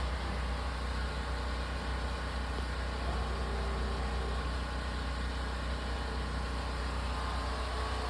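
RV rooftop air conditioner running just after being switched on: a steady low hum with an even whoosh of airflow over it.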